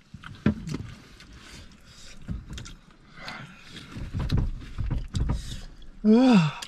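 A man breathing hard and puffing air through his mouth from the burn of very hot chicken wings, with a few clicks of handling noise, then a short groan that rises and falls in pitch near the end.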